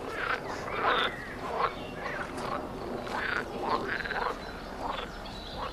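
A chorus of animal calls: many short calls that rise and fall in pitch, several a second and overlapping one another.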